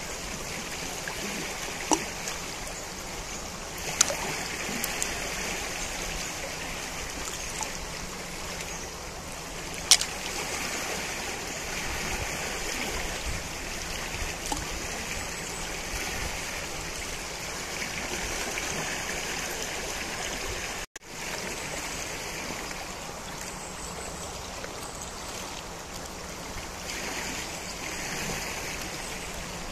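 Najerilla river flowing: a steady rush of moving water. A few sharp clicks cut through it about two, four and ten seconds in, the one at ten seconds the loudest. The sound drops out for an instant about 21 seconds in.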